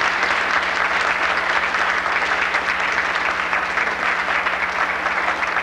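Audience applauding: many hands clapping steadily, easing off near the end, over a steady low hum.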